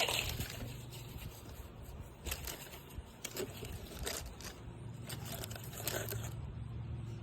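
Short scraping strikes of a fire starter, about five at irregular intervals a second or so apart, as a Vaseline-soaked cotton ball is lit, over a low steady hum.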